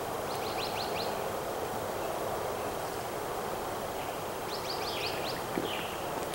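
A bird calling twice: two quick runs of high chirps, one about a second in and one about five seconds in, over steady outdoor background noise.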